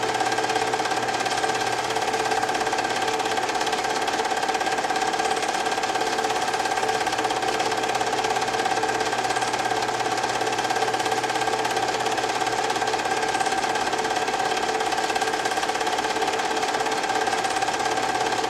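Film projector running steadily: a continuous mechanical whir with a fast, even clatter and a few held humming tones.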